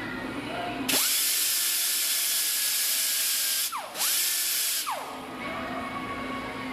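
Power grinder grinding down the weld beads on a steel crank trigger wheel to make the surface flat again: two runs, the first about three seconds and the second about one, each with the motor whining up to speed and falling in pitch as it spins down.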